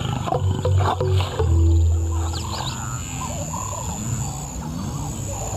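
Lions growling over background music. The deepest and loudest growling comes in the first two and a half seconds, then lighter, wavering sounds follow.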